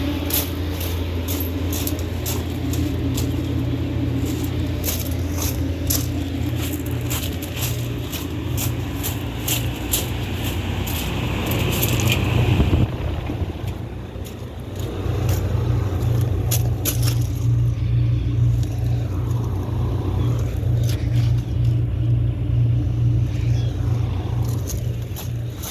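Air-conditioning units running with a steady low hum. Many sharp clicks and crackles sound over it, most of them in the first half. The hum dips about halfway through and comes back a couple of seconds later.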